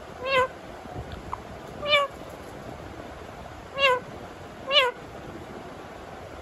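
Pet green parakeet mimicking a cat's meow: four short meow calls, each rising then falling slightly, a second or two apart.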